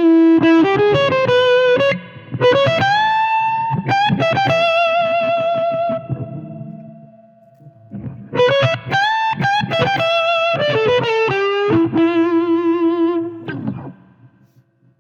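Electric guitar played through a Cardian Effector 'Vitamin C' fuzz pedal: lead phrases of sustained, fuzzed notes with string bends and vibrato, with a short pause in the middle, the last note dying away near the end.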